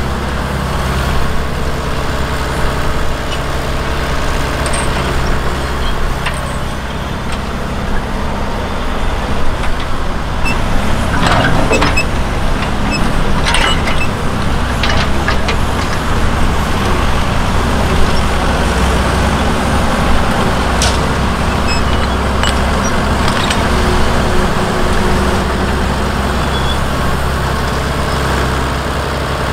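A vintage cable-operated crawler dragline's engine running steadily, with the rattle and clank of the drag bucket's chains and pulleys as the bucket is hauled through the soil, heaviest about a third of the way in and again in a few single clanks later.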